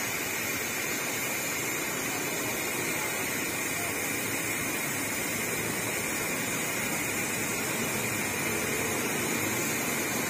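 Steady rushing roadside noise with no distinct events.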